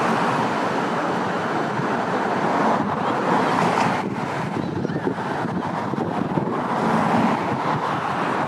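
Steady road-traffic noise from cars passing on the bridge, mixed with wind on the microphone.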